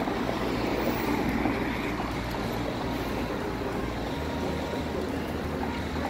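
Steady road traffic noise from cars passing on a busy multi-lane street, a little louder in the first couple of seconds, with a low wind rumble on the microphone.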